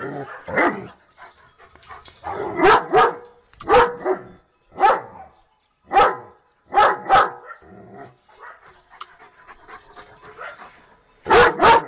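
German Shepherd barking: about ten short, loud barks, some in quick pairs, with a pause of about three seconds before two last barks near the end.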